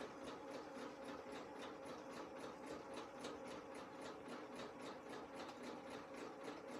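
Janome electric sewing machine running steadily during free-motion stitching: a faint motor hum with the needle ticking evenly, about five stitches a second.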